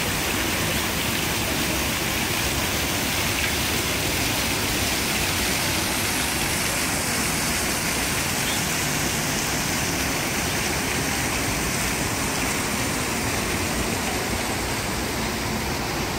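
Water from a stone fountain spilling from its upper bowl into the basin, a steady splashing.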